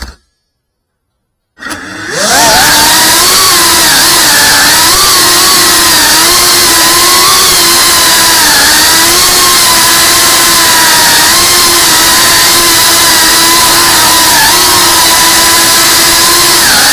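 FPV drone's electric motors and propellers whining, heard from on board. About a second and a half in they spin up with a quick rise in pitch, then hold a loud steady whine whose pitch wavers a little with throttle.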